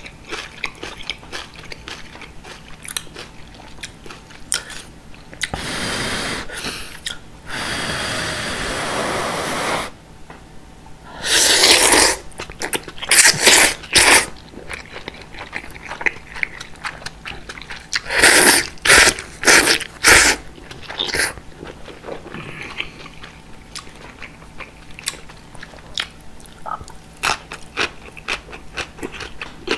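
Thick udon noodles slurped up in long, loud pulls, a few spells of short slurps after them, with wet chewing and mouth clicks between.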